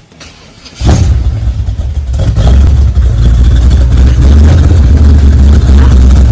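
Supercharged big-block V8 of a 1955 Chevy, coming in suddenly about a second in and running loud with a deep, steady low rumble.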